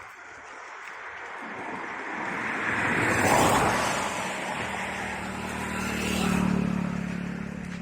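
Road vehicles passing close by, one after another. The first is a rushing sound that swells to its loudest about three seconds in; a second vehicle with a steady engine hum follows and peaks a few seconds later.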